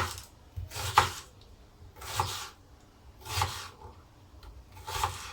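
A kitchen knife slicing through onions on a cutting board, one stroke about every second: each cut a short rasping swish with a light knock as the blade meets the board.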